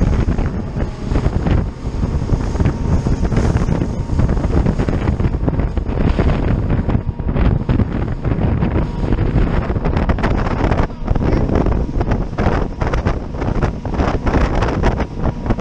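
Wind buffeting the microphone of a RIB running fast over choppy sea, with irregular gusts and the rush and splash of water and spray along the hull.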